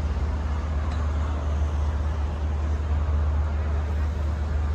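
Steady low engine rumble with a faint wash of background noise, unchanging throughout.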